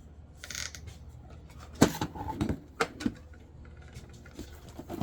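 Handling noises: a brief rustle about half a second in, then a sharp click and a few smaller clicks and knocks over the next second, over a low steady hum.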